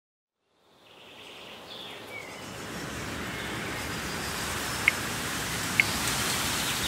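Outdoor ambience fading in from silence: a steady rushing hiss that grows louder over several seconds, with two short high chirps near the end.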